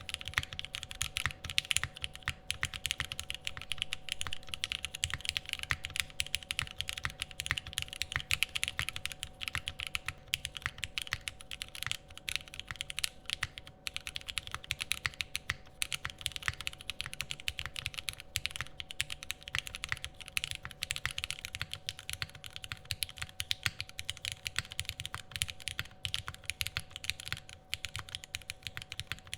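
Continuous fast typing on a Sangeo 60 gasket-mount mechanical keyboard with lubed, filmed Cherry Hyperglide MX Black linear switches: a dense, even stream of keystrokes, with a faint steady hum underneath.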